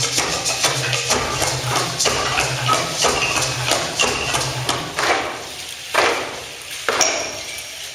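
Rhythmic percussion in a Mexican folk dance performance: dense taps and thumps, then about three single louder strikes roughly a second apart near the end, each ringing on briefly.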